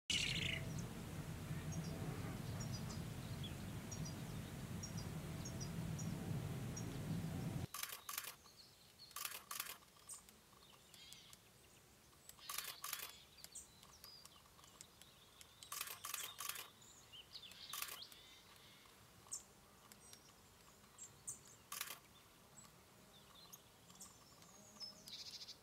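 For the first several seconds a steady low outdoor rumble with faint small-bird chirps, cutting off abruptly. Then a European nuthatch hammers seeds against a log: groups of sharp woody taps a few seconds apart, with faint bird calls between them.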